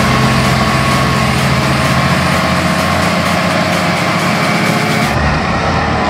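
John Deere 7230R tractor's six-cylinder diesel engine running steadily under load while pulling a reversible plough through the soil.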